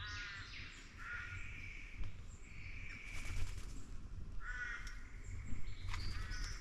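Australian king parrots calling: a series of short, harsh squawks repeated about once a second.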